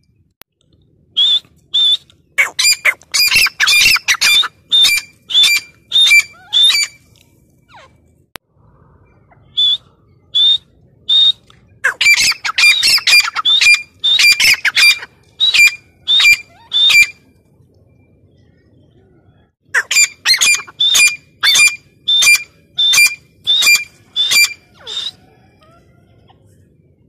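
Female gray francolin calling: three bouts of loud, sharp, repeated notes, about two to three a second, each bout several seconds long with short pauses between.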